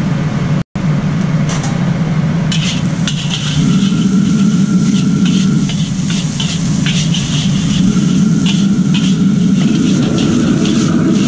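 Steady low rumble of a commercial wok range burner under a carbon-steel wok, with a metal ladle repeatedly scraping and clanking against the wok from about two and a half seconds in as fried rice is stirred and tossed.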